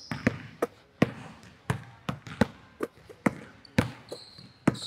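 Basketball dribbled hard on a hardwood gym floor, sharp bounces at about two a second, with a brief sneaker squeak near the end.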